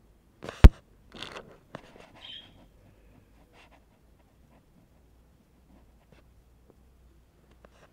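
Handling noise on a phone's microphone: a sharp knock about half a second in, with brief rustling scrapes over the next two seconds, then quiet with a few faint ticks.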